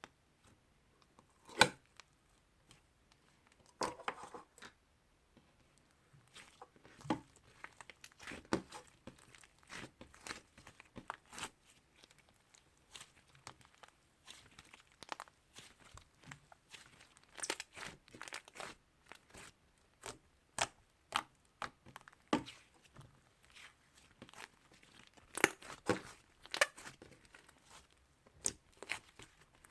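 Slime being handled, squeezed and stretched, making irregular sharp crackles and pops. The loudest pop comes about a second and a half in.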